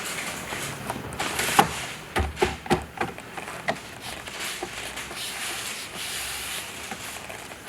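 Hands handling plastic interior trim and wiring in a car: rustling and rubbing with a few sharp clicks and knocks scattered through the first half.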